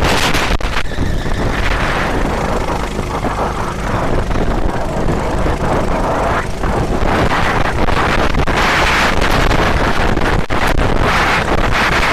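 Steady, loud wind buffeting on a fast-moving onboard camera's microphone, rough and gusty with a few brief dips.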